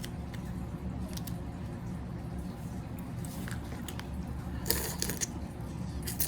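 Crawfish shells being crushed between the teeth and the meat mashed out: a few faint crunches and wet squishes, with a short cluster of louder crackles about three-quarters through, over a steady low hum.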